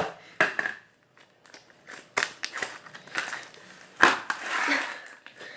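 Thick slime being squeezed and pulled in the hands, giving irregular sticky clicks and crackles, with a louder squelch about four seconds in.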